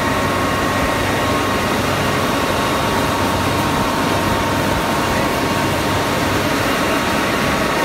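Steady loud din of steel-plant machinery in a continuous casting shop: an even rushing noise with a constant whine running through it.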